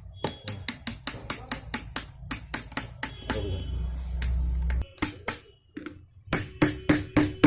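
Rapid, even hammer taps, about four or five a second, driving a shift fork into place on a Hyundai Santro manual gearbox being reassembled. The tapping pauses about five seconds in and then resumes faster. A low hum runs underneath and stops about five seconds in.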